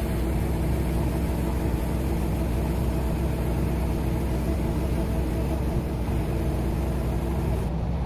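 Hydraulic core drill boring down into rock, driven by its hydraulic power unit, which gives a steady low drone.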